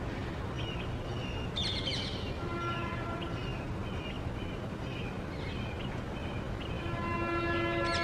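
Small birds chirping and twittering over a steady low background rumble, with a louder flurry of quick chirps about a second and a half in and another at the end.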